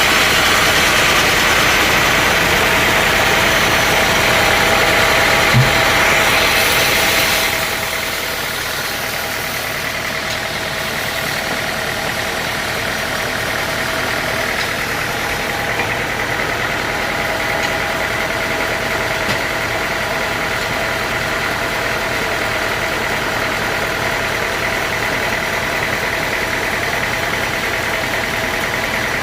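Sawmill machinery running steadily with a constant whine. About seven seconds in, the hiss-like upper part fades and the overall level drops a little, leaving a steadier, duller running sound.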